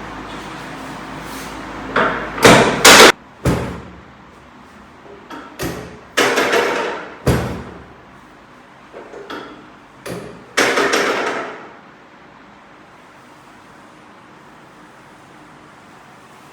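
A series of loud knocks and clattering thuds in three clusters, the loudest about two to three seconds in, with a steady low hum that stops about three seconds in.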